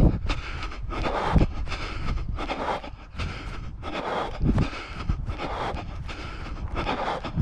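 A runner breathing hard while running, with evenly paced footfalls about three a second on a grass and dirt path. Wind rumbles on the microphone.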